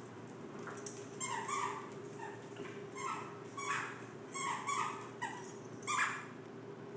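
A stuffed squeaky dog toy squeaking over and over as dogs bite and tug it: about eight short, high squeaks at an uneven pace.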